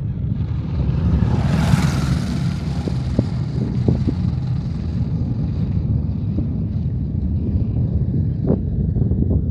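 Distant PSLV rocket launch: a steady low rumble from its solid-fuel first stage as it climbs, with a brief louder, crackling swell about two seconds in. Wind buffets the microphone.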